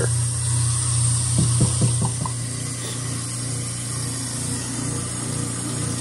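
Tap water running from the faucet through a dishwasher drain hose into a stainless-steel sink, flushing out a food clog, with a few light knocks about one and a half to two seconds in, over a steady low hum.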